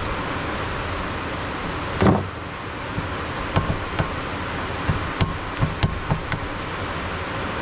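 Steel parts of a T-90 transmission mainshaft being worked by hand: a sharp knock about two seconds in as the snap ring is worked off with snap ring pliers, then a string of light metallic clicks as the second-and-third synchronizer assembly is handled. A steady hiss lies underneath.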